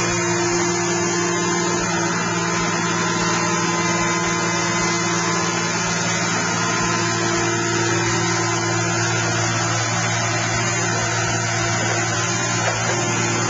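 Orca car baler's power unit and hydraulic pumps running with a steady drone, holding a constant pitch with no sharp crashes or impacts.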